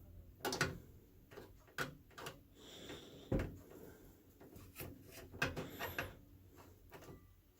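Irregular light clicks and knocks of hard objects being handled against a microwave's casing, about a dozen spread over several seconds, one sharper knock near the middle.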